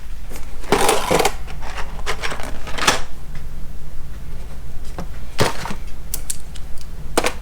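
Boxed tools and packaging being shifted and stacked by hand: a few scattered knocks and rustles as items are picked up and set down, with a cluster about a second in and single knocks near three seconds, past five seconds and near the end.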